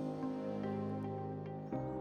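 Soft new-age background music: sustained chords that change about two seconds in.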